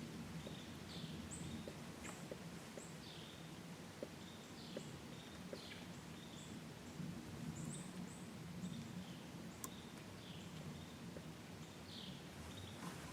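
Small birds giving short, high chirps again and again, many of them quick downward slurs, over a faint steady low rumble of outdoor background noise.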